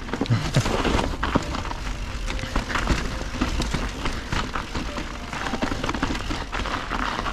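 Mountain bike rolling downhill over a snowy, rocky trail: steady tyre noise on snow and stone with frequent knocks and rattles from the bike, over a constant low rumble of wind on the microphone.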